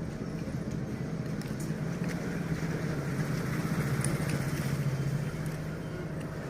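Honda Activa scooter's single-cylinder four-stroke engine running steadily, getting a little louder for a couple of seconds about halfway through, then settling.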